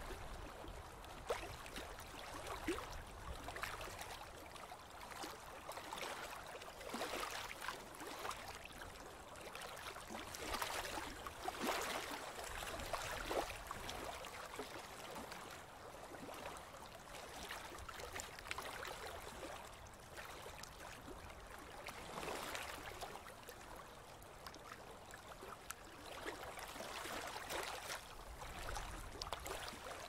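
River water lapping and splashing in small ripples: a steady wash dotted with small splashes that swells and ebbs every few seconds.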